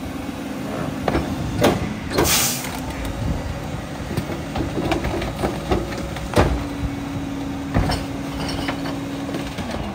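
Mack MRU rear-loader garbage truck running at idle while cardboard and a recycling cart are tipped into its Heil hopper, with several sharp knocks and clanks. There is a short hiss about two seconds in and a steady hum from the truck's hydraulics over the last few seconds.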